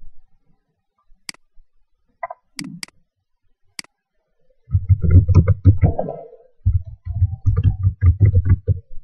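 A few sharp single clicks, then a quick run of typing on an ASUS K54 laptop keyboard from about halfway in, heard as a dense patter of dull key thumps with a brief pause in the middle.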